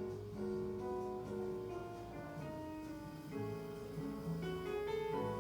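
Instrumental background music: a guitar playing slow, held notes that change about every half second.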